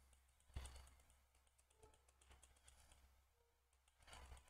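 Near silence: room tone with a faint low hum and a single faint click about half a second in.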